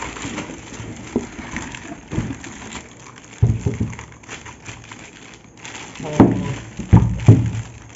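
Plastic packaging bag crinkling and rustling as a subwoofer is lifted out of its cardboard box and handled on a wooden table, with several dull knocks, the first about halfway through and a cluster near the end.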